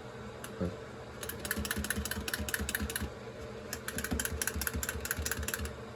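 Two clockwork wind-up tin chickens running on a tabletop: their spring mechanisms whir while the tin clicks rapidly against the surface, in two spells with a short lull in between.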